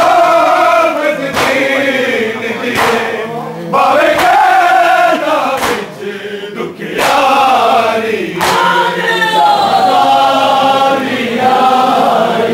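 Many men's voices chanting together in a Shia mourning chant, sung in phrases with short pauses between them.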